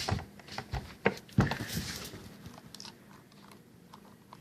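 Plastic clicks and knocks of model freight cars being handled and coupled together, several sharp ones in the first two seconds, then lighter ticks that fade out.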